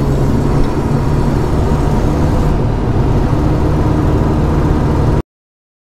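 Off-road vehicle engine running steadily under a heavy low wind rumble on the microphone, cutting off abruptly about five seconds in.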